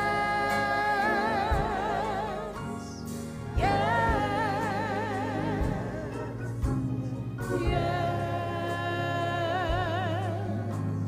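Slow gospel music: a voice holds long notes with vibrato in three phrases, with short breaks between, over a steady low accompaniment.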